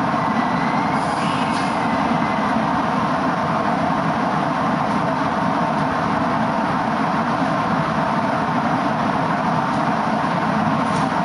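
Hakone Tozan Railway train running slowly into the platform, heard from inside the cab: a steady hum and running noise, with a faint high squeal about a second in.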